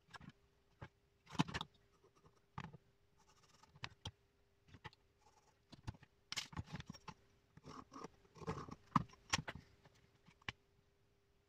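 Desk handling sounds: a marker tapping and scratching through a paper template onto a wooden board, paper rustling, and light knocks as the template, board and a metal ruler are moved, over a faint steady hum. The clicks come irregularly, busiest in the second half.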